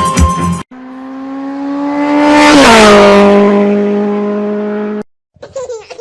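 A motor vehicle driving past fast: a steady engine note and rushing noise that swell, drop in pitch about two and a half seconds in as it passes, then fade and cut off. A beat of music ends the previous clip just before it.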